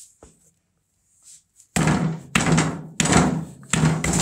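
Soft-faced mallet tapping a rubber profile seal down into a cast-iron pump guide claw: a run of dull thuds about every two-thirds of a second, starting a little under two seconds in, driving the seal into its seat.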